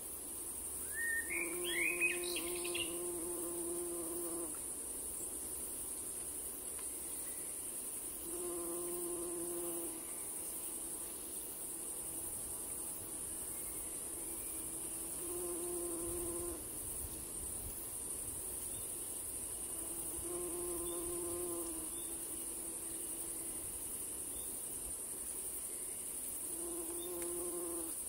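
Outdoor insect sounds: a steady high-pitched hiss like crickets or grasshoppers, with a low buzzing hum like a passing fly or bee that comes and goes five times. About two seconds in there is a short, rising run of chirps, the loudest sound here.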